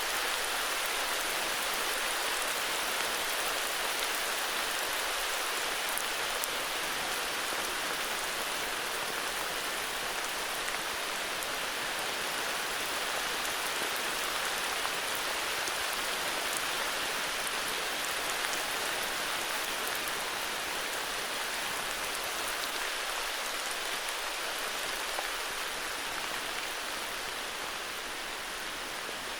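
Steady heavy rain, a dense even hiss with fine drop taps, easing slightly in loudness near the end.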